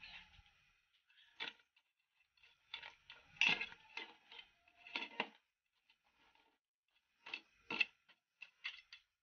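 Metal ladle stirring crabs in coconut milk, clinking and scraping against the metal pot and the crab shells in irregular knocks, loudest about three and a half seconds in and again near the eight-second mark.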